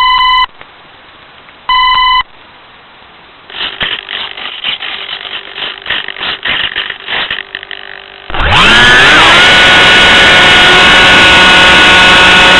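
Two short loud electronic beeps, then several seconds of crackling noise. About eight seconds in, the Sky Surfer RC plane's electric motor and propeller spin up with a rising whine and then run loud and steady at high throttle.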